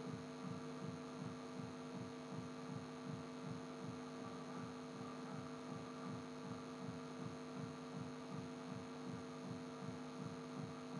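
Steady electrical hum with a low, regular throbbing pulse about three times a second, the background noise of the recording setup.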